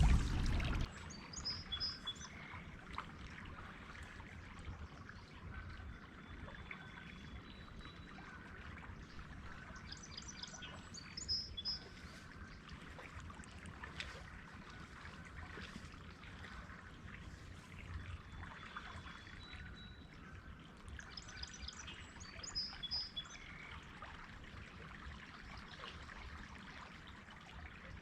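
A songbird sings a short, high phrase three times, about ten seconds apart, with a fainter thin whistled call between, over the soft trickle of river water.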